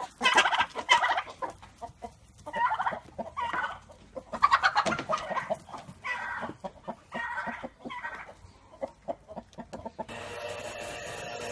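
Chickens clucking and squawking in a run of loud, short calls. About ten seconds in, the calls stop and a steady rubbing hiss begins.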